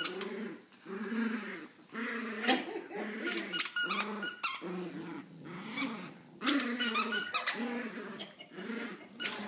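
Dogs play-growling during a tug-of-war over a plush toy: a run of short growls that rise and fall, about one a second, with sharp clicks mixed in.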